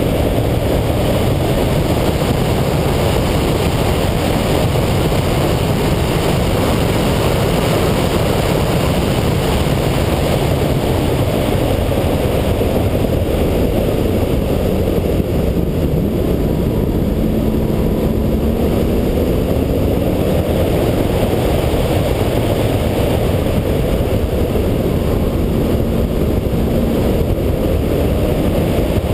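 2011 Corvette Z06's 7.0-litre LS7 V8 driven at speed on a road course, heard under a loud, steady rush of wind and road noise. The engine's pitch rises and falls now and then in the middle and later part.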